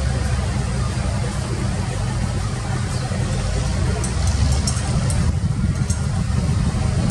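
Excavator engine running steadily with a deep, continuous drone, with a few faint ticks about four to five seconds in.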